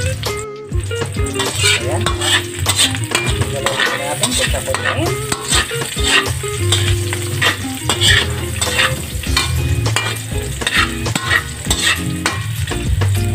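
Minced garlic and chopped onion sizzling as they sauté in hot oil in a pan, with a spatula scraping and clicking against the pan as they are stirred.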